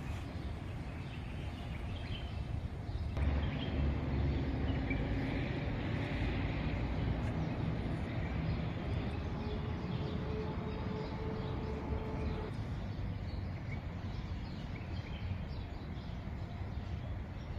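Outdoor background noise: a steady low rumble, joined about three seconds in by a steady engine-like hum of several tones that cuts off suddenly about twelve seconds in.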